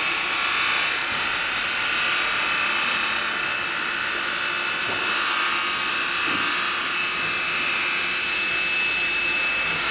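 Steady high electric whine with a hiss, from machinery running continuously.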